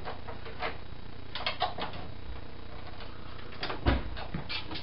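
Scattered light clicks and rattles of objects being handled, with a louder dull thump about four seconds in, over a steady low hum.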